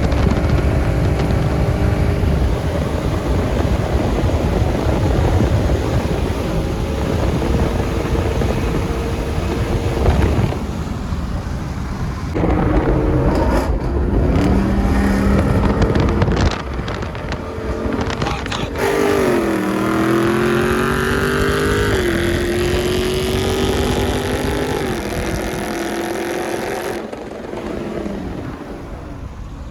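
V8 muscle-car engines running hard under acceleration, in several short clips that start and stop abruptly. In one clip the engine climbs in pitch, drops at a gear change, then climbs again.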